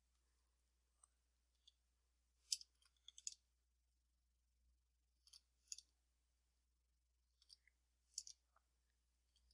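Computer mouse and keyboard clicking: a few short, sharp clicks in small clusters a few seconds apart over a quiet room.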